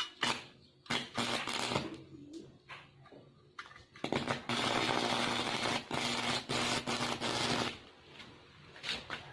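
Homemade microwave-transformer welder striking an arc: a few short sputtering crackles as the rod touches and lifts, then a steady crackling arc with a buzz underneath, held for about three and a half seconds and breaking off suddenly.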